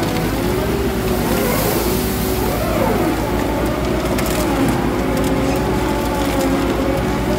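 Arjes Impaktor 250 shredder running under load as it chews a hopper full of brush and branches. A steady engine drone dips in pitch a few times as it takes the load, with a few faint woody cracks.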